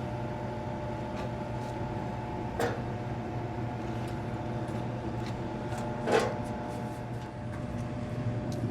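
Steady, even hum of a refrigeration vacuum pump running, pulling the refrigerant circuit down after the coil was brazed in. Two short, sharp sounds cut in, about two and a half seconds in and again about six seconds in.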